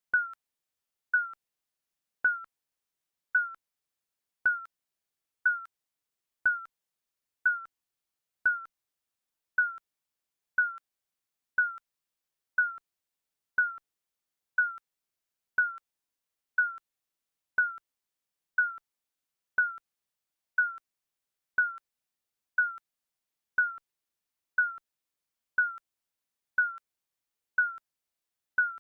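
Digital countdown timer beeping once a second: a short, high electronic beep each second, with silence between.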